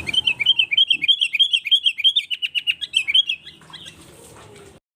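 Sooty-headed bulbul (kutilang) giving a rapid run of sharp chirps, about five a second, that stops about three and a half seconds in.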